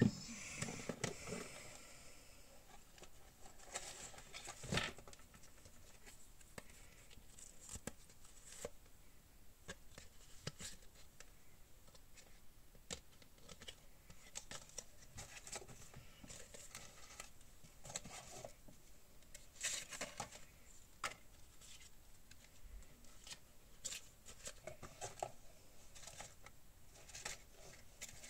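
Sheets of paper and cardstock rustling and tapping as they are handled and laid down on a journal page: scattered light clicks and short rustles, with a few louder rustles near the start, about five seconds in and about twenty seconds in.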